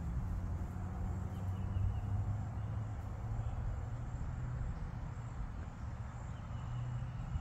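Outdoor ambience: a steady low hum, with a few faint short high chirps.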